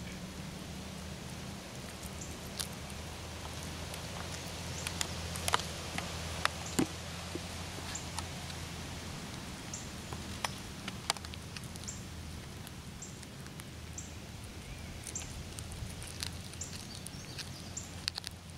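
Cat chewing on a freshly killed chipmunk: a scatter of sharp crunches and clicks, loudest around five to seven seconds in and again near eleven seconds, over a steady low hum.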